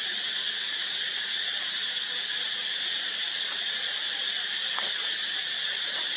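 Steady insect chorus: a constant, high-pitched drone that never breaks, with a few faint ticks.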